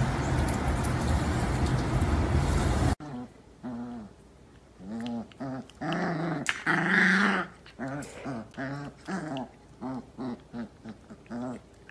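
Steady noisy hum that cuts off about three seconds in. Then a dog and a spotted cub play-fight, with a run of short growling and whining calls, two or three a second, and one longer, louder growl about seven seconds in.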